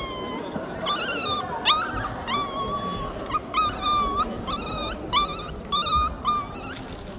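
A dog whining over and over in short, high-pitched cries, about two a second, each starting with a quick upward slide.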